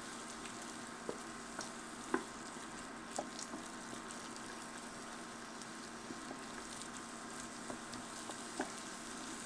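Diced vegetables, flour roux and red wine sizzling gently in a stainless steel pan as a wooden spoon stirs them, with a few scattered soft clicks of the spoon against the pan; the wine is cooking down so its alcohol evaporates.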